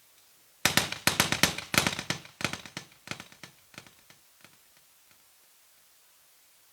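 A string of firecrackers going off: a rapid, irregular run of sharp bangs that starts under a second in, is densest for the first second or so, then thins out and dies away a few seconds later.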